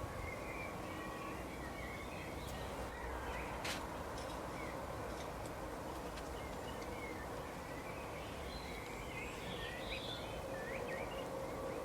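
Songbirds chirping in short scattered calls and trills over a steady low rumble of background noise, with one sharp click a little under four seconds in.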